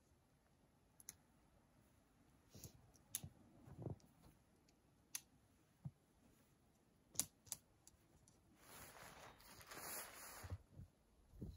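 Faint, sparse clicks as the tent body's plastic clips are snapped onto the tent poles, then, about eight seconds in, a couple of seconds of nylon rustling as the rainfly is spread over the tent.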